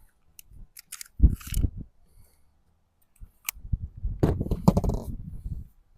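Small sharp metallic clicks and rattles of the Colt Woodsman .22 pistol being handled, with several clicks in the first second and a single sharp click about three and a half seconds in, amid low handling rustle; no shots are fired.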